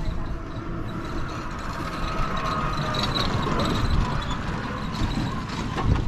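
Road noise of moving along a rough dirt village road: a steady low rumble with rattling, and a single knock near the end.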